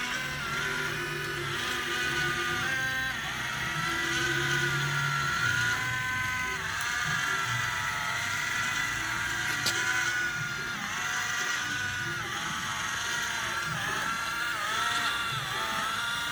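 Small electric motors and gearboxes of radio-controlled model construction vehicles whining, the pitch stepping and gliding up and down as the motors speed up and slow down.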